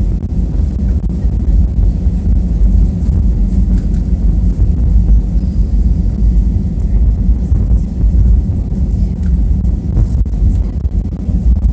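Steady low rumble of an Airbus A320 heard from inside the cabin at a rear window seat: the jet engines and the airframe as the aircraft rolls along the ground.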